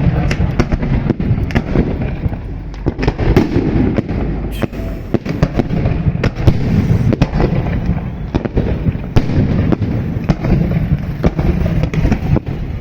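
Fireworks going off close by in a dense barrage: loud bangs several times a second, overlapping one another over a continuous rumble and crackle.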